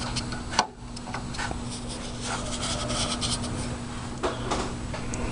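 Cotton swab scrubbing inside a GM PCM wiring connector to clean out dirt: a series of short scratchy rubs over a steady low hum.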